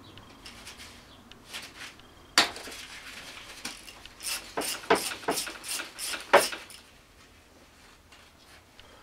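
Small metal clicks and clinks as cam chain, sprocket and tools are handled at a scooter engine's open cylinder head. One sharp clink comes about two seconds in, then a quick run of clinks in the middle, the last one the loudest.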